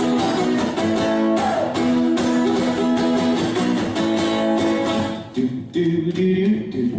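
Song's instrumental break: strummed guitar playing steady chords, the sound thinning to a sparser guitar figure about five and a half seconds in.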